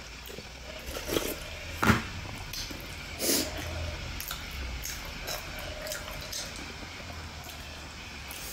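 Close-miked mukbang eating sounds: sipping and slurping momo dipping sauce from a small bowl, then chewing with wet mouth clicks and smacks. The loudest smack comes about two seconds in.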